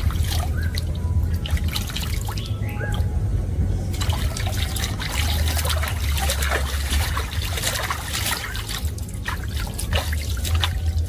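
Water trickling and splashing in a swimming pool in small irregular bursts, over a steady low rumble.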